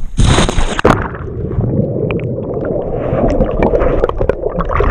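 A person jumping feet first into a creek with the camera: a loud splash just after the start, then muffled underwater bubbling and rushing while the camera is submerged, cutting off abruptly as it comes back up at the end.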